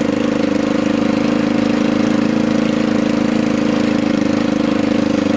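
1992 Honda CBR600 inline-four motorcycle engine idling steadily through motorcycle mufflers, with a fast even pulse. It is loud because an exhaust leak at the header pipe, where a nut is missing, lets it blow past the mufflers.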